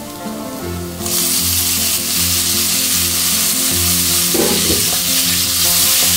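Chopped tomatoes going into a frying pan of browned onions in hot oil and butter: the sizzle jumps sharply louder about a second in and keeps up a steady, loud frying hiss over high heat.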